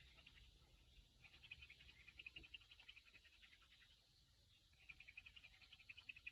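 Near silence with a faint chorus of rapid, high, pulsing chirps from small animals. The chirping fades away around the middle and comes back near the end.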